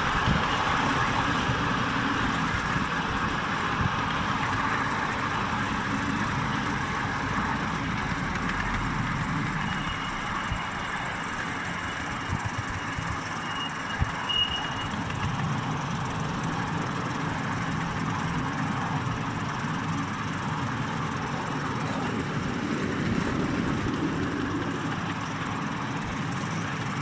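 Ride-on miniature railway train running along the track: a steady rumble of wheels on rail with a few sharp clicks. A thin high whine comes in for a few seconds near the middle.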